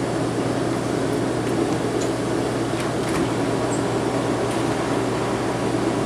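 Steady mechanical hum with a constant low tone, the running of commercial kitchen equipment such as refrigeration units and fans.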